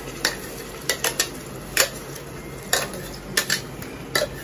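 Steel spoon knocking and scraping inside a stainless steel mixer-grinder jar as ground raw tomato is emptied into a pressure cooker: irregular sharp metallic clinks, about nine in four seconds.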